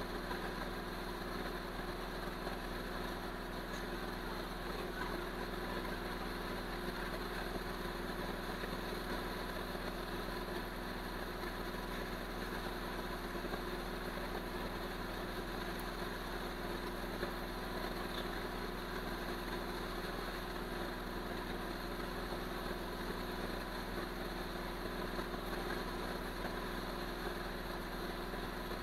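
Hot air rework station blowing steadily, an even rush of air and fan hum with a few constant tones, as its nozzle heats a component on a laptop logic board.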